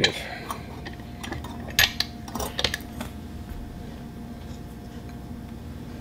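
Light clicks and metallic clinks as a plastic connector and its wires are set into the jaws of a metal bench vise, a handful in the first three seconds, then only a faint steady hum.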